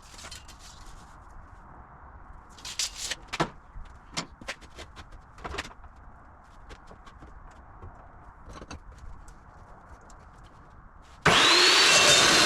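Scattered knocks and clicks of work being handled, then near the end a cold cut metal saw starts up suddenly and runs loudly with a high whine.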